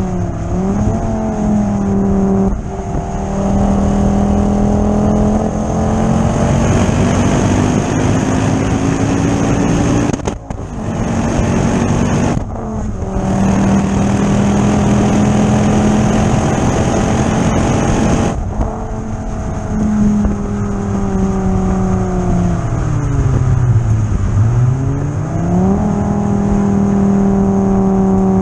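Ford Focus ST 225's turbocharged five-cylinder engine heard from inside the cabin, pulling hard on track, its pitch climbing slowly for about ten seconds. Two brief breaks follow, then the pitch falls away steadily to a low about 24 seconds in and climbs quickly again as the car accelerates once more.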